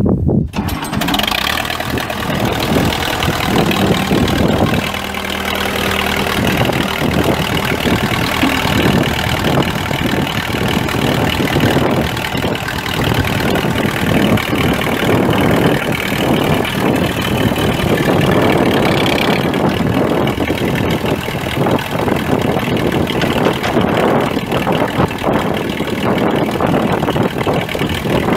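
Case 580CK tractor's four-cylinder diesel engine starting at the outset, then running steadily.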